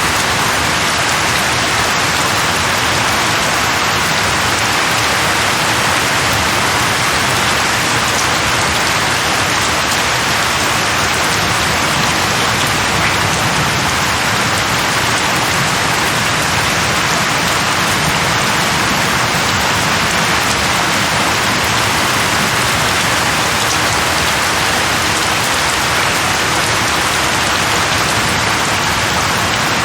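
Steady rain falling on leaves, an even, unbroken hiss.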